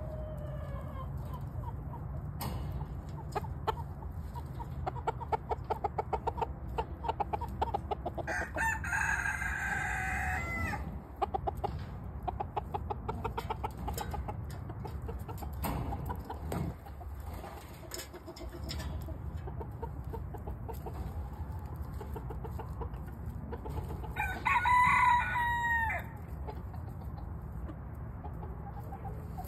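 Chickens clucking in rapid runs of short notes, with a loud squawking call about nine seconds in and a louder one about twenty-five seconds in.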